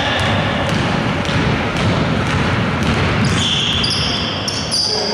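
Basketball game on an indoor hardwood court: the ball bouncing on the floor, and a few short high sneaker squeaks in the second half, over a steady hiss of hall noise.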